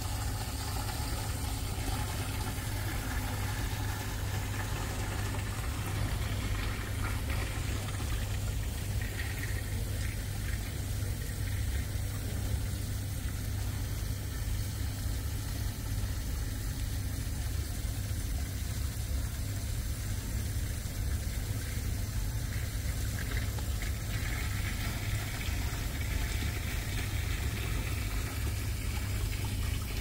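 Water trickling and running in an indoor atrium's rock stream and waterfall feature, over a steady low hum.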